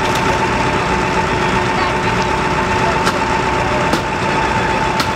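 An engine of the fire apparatus runs steadily with a constant whine. A few sharp clicks or snaps come in the second half.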